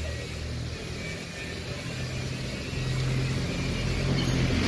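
Low, steady engine hum that grows gradually louder.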